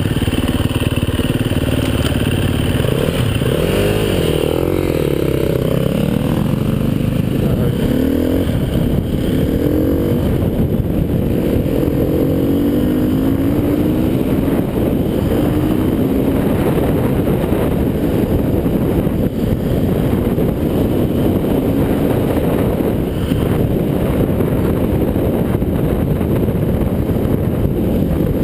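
Husaberg FE 350's four-stroke single-cylinder engine on board, revved hard and rising and falling in pitch through the gears in the first half, then running steadily at speed over a dirt track.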